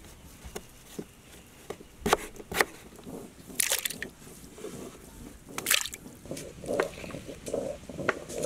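A knife knocking through potatoes onto a wooden cutting board, then cut potato pieces sloshing and splashing in a pot of water. Soft repeated rubbing begins near the end.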